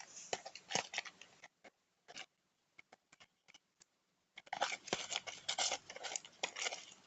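Glue slime being mixed with borax activator as it nearly sets: irregular sticky clicks and crackles, sparse at first with a short lull, then dense from about four and a half seconds in.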